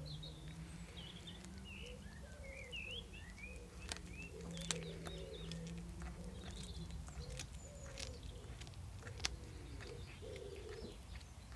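Birds calling: repeated low, warbling coos together with short, higher chirps, and a few sharp clicks in between.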